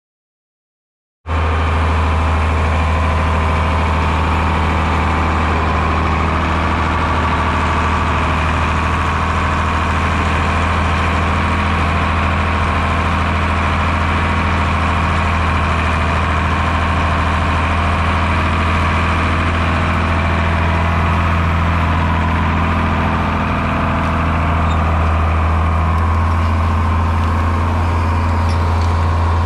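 John Deere New Generation tractor engine running steadily under load as it pulls a moldboard plow through the soil, with a steady low drone. The sound cuts in suddenly about a second in.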